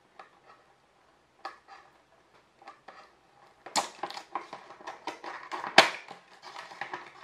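Box of a small phone ring light being opened and handled: scattered crackles and clicks that get busier about halfway in, with one sharp snap near the end.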